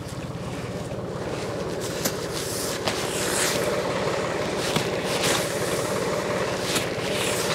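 John Deere 820 three-cylinder diesel tractor idling steadily, with a few short sharp cracks and brief rustles over it from frozen hay being pulled apart.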